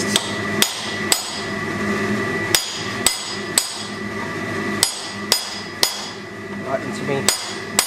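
Hand hammer striking a steel punch held against a hot forged-steel dragon head in a vise, punching in the eyes: about nine sharp metallic strikes in short groups of two or three, each with a brief ring.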